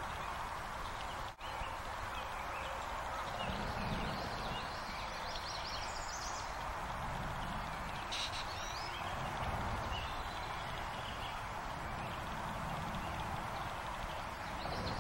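Stream-side ambience: a steady wash of running water under a low rumble, with songbirds chirping now and then. The sound cuts out for a moment about a second and a half in.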